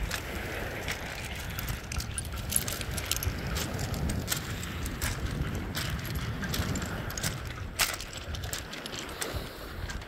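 Footsteps crunching on shingle, the pebbles clacking with each step about twice a second, under a low rumble of wind buffeting the microphone. The steps thin out near the end.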